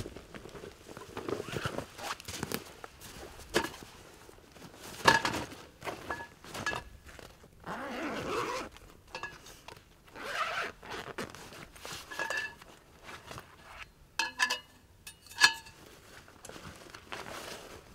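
Folding camp cot being unpacked and set up: zipping, rustling and scraping, with the metal frame clicking and giving a few sharp ringing clinks as it is unfolded.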